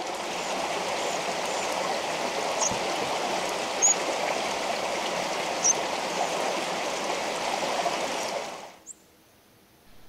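Creek water running steadily, a continuous rushing that fades out about nine seconds in.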